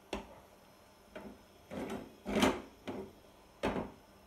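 Silicone spatula scraping and stirring a potato-and-egg tortilla mixture in a nonstick frying pan: about six short scraping strokes, the loudest about two and a half seconds in, as the eggs begin to set.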